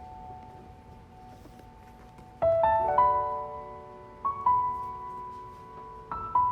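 Slow solo piano music: sparse chords struck and left to ring, with a new chord every second or so in the second half.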